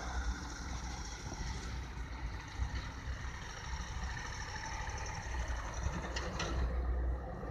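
Street traffic with a steady low engine rumble, and a car driving past close by, growing louder and peaking about six to seven seconds in.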